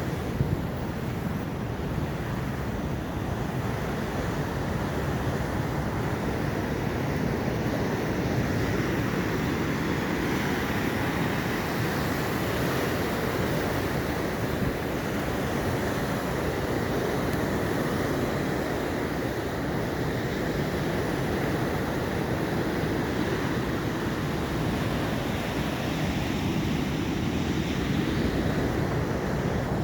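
Atlantic Ocean surf: a steady rush of waves breaking and washing in.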